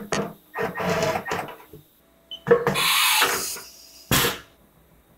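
Cordless screwdriver driving screws into a sheet-metal way cover in several short bursts over the first two seconds. A longer rush of noise follows about halfway through, then a sharp knock near the end.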